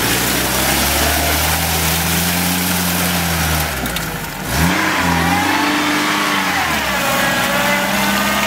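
Lada Niva's four-cylinder engine labouring and revving as the car pushes through deep mud ruts. The engine note holds steady, dips, then rises quickly about halfway through and falls again near the end as the throttle is worked.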